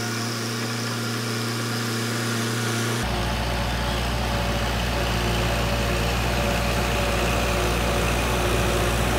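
Diesel farm tractor running steadily while pulling a rotary tiller through a flooded rice paddy, puddling the mud. It grows gradually louder as it comes closer, and a deeper rumble joins about three seconds in.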